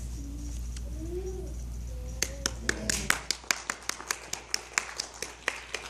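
A few people clapping: sharp, separate claps about five a second, starting about two seconds in.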